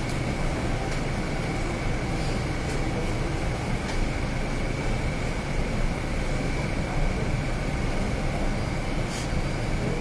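Steady room noise: a low hum and rumble with a thin, steady high whine, and a few faint clicks.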